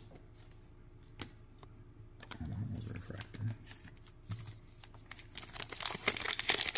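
A few light clicks and taps of cards being handled, then from about five seconds in a sealed foil trading-card pack crinkling as it is taken up and worked in the hands, growing louder toward the end.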